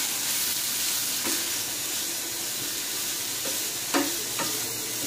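Chicken and mixed vegetables sizzling in a frying pan while being stirred with a spatula, which scrapes and knocks against the pan a few times, loudest about four seconds in.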